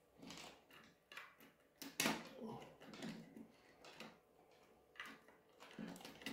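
Faint scraping and tapping of a hand-held cleaning stick worked along an H0 model railway's overhead wire, a string of small irregular clicks with a sharper click about two seconds in.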